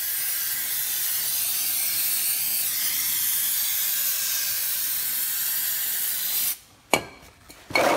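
Aerosol brake cleaner spraying in a long, steady hiss as it washes down the brake parts, cutting off abruptly about six and a half seconds in. A click and then a louder knock follow near the end.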